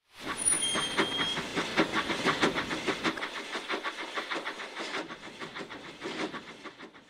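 Steam locomotive sound effect: a quick, even run of chuffs with a hiss of steam at the start, fading away near the end as the engine pulls away.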